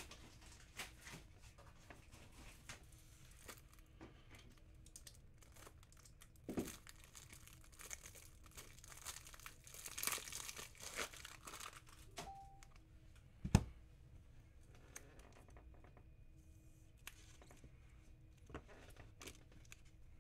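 Faint crinkling and tearing of a trading-card pack's wrapper as it is opened by hand, busiest about halfway through, with scattered small clicks and one sharp knock a little after that.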